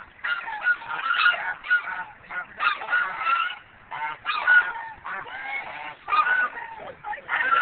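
A flock of domestic geese honking, many calls overlapping in quick runs with brief pauses between them.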